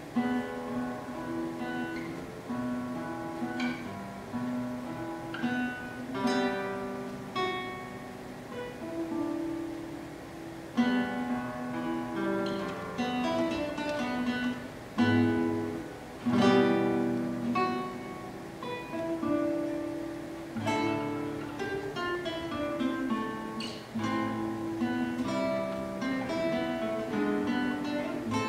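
Solo classical guitar playing a contemporary concert piece: fingerpicked notes and ringing chords. It includes a few sudden loud chords around the middle.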